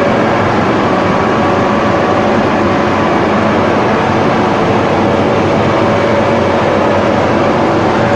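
Buldog DUPLEX double-sided calibrating-sanding machine, driven by four 11 kW main motors, running steadily: a loud, even machine noise with a faint steady tone that comes and goes. All its systems and units are running normally.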